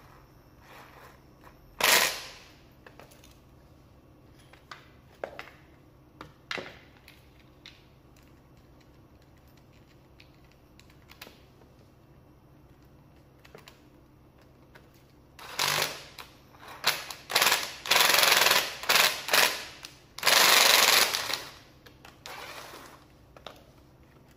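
Makita TD110D 12-volt cordless impact driver hammering as it loosens screws: one brief burst about two seconds in, then a run of short bursts near the end, the last one the longest. Small clicks of handling come between them.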